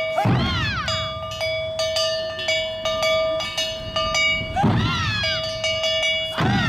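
Awa-odori festival music: a kane hand gong clanging in a quick steady rhythm, with heavier accented hits near the start, about four and a half seconds in, and again near the end.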